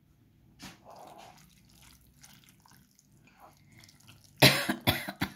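A person coughs about three times in quick succession near the end. Before that there are faint soft wet sounds of a hand squeezing and mixing food in a bowl.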